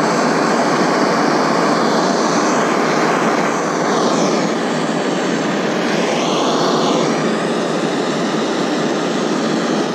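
Plumber's butane-propane gas torch burning with a steady rushing hiss as it heats aluminium to the temperature at which the brazing rod melts and flows into the joint.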